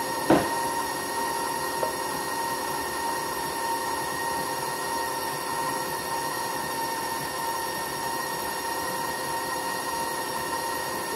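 Electric stand mixer running at a constant speed, a steady motor whine over a hum as it mixes cookie dough. A single sharp knock sounds about a third of a second in.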